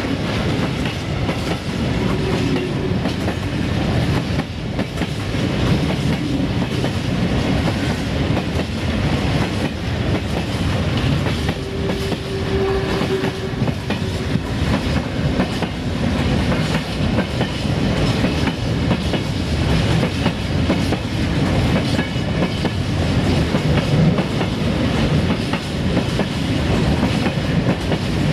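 Open-top freight wagons rolling past close by: a steady rumble of wheels on rail, broken by a constant run of wheel clicks over the rail joints.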